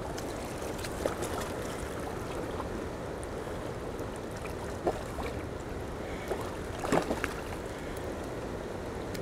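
Steady rush of river water, with a few small splashes as a hooked large catfish is grabbed by hand at the water's edge.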